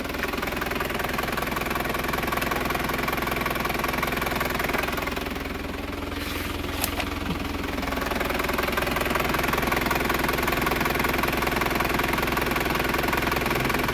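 Isuzu Crosswind engine idling steadily after its loose crankshaft pulley was replaced, with one sharp click about seven seconds in.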